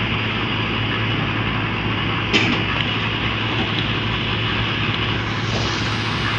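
Diesel engine of an SEM 917 motor grader running steadily under working load, with a single sharp knock about two and a half seconds in.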